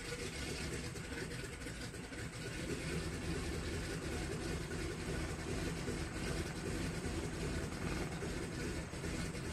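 One of the Pratt & Whitney Wasp radial engines of a 1928 Ford 5-AT-B Tri-Motor catching and starting up, then idling with a deep rumble that grows louder about two and a half seconds in and then holds steady.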